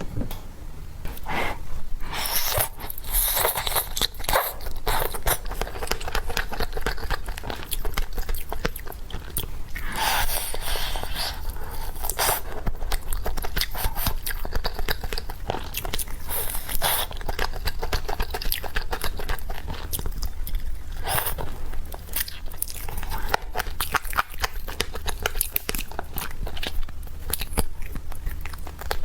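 A person biting into and chewing chicken close to the microphone: a dense run of crackly bites and chews that goes on without a break.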